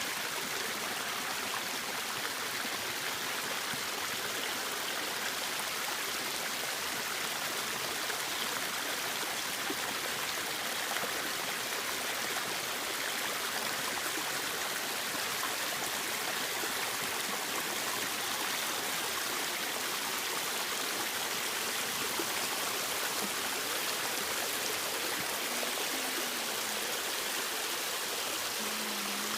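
Small waterfall: water pouring and splashing steadily in an even rush with no break.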